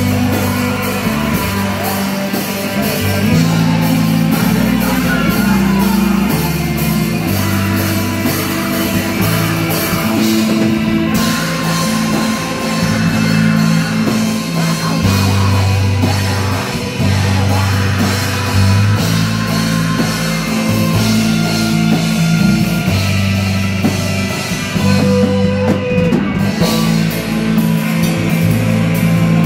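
Heavy metal band playing live and loud: distorted electric guitars, bass guitar and drum kit, with a vocalist singing into a microphone over them.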